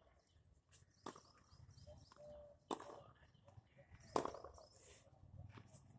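Tennis ball struck by a racket and bouncing on a hard court: a few sharp pops spaced a second or more apart, the loudest about four seconds in, with lighter taps between.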